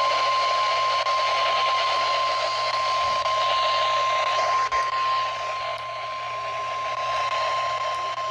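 NOAA Weather Radio warning alarm tone, a single steady 1050 Hz beep held without a break, played through a weather radio receiver over loud radio static and a low hum. The tone marks the start of a warning broadcast.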